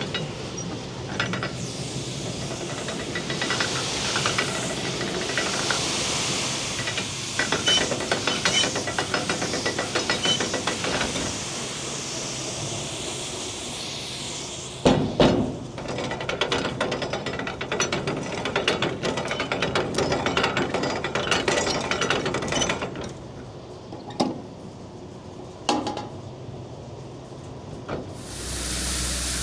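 Farm machinery running: a steady rushing hiss with many rattling clicks and knocks, changing abruptly several times.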